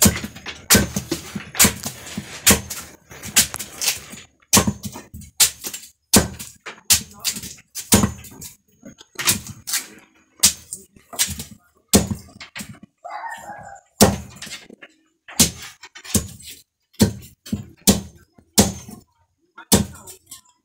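A long knife chopping through a forage cactus (palma) trunk against a wooden board. The chops are sharp and come steadily, about two a second.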